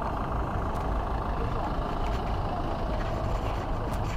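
A heavy engine running steadily at idle, a low, even rumble.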